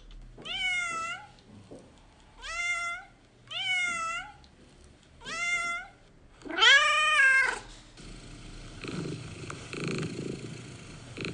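A domestic cat meowing five times, each meow rising then falling in pitch, the fifth longer and louder. It then goes over to a steady rough purr.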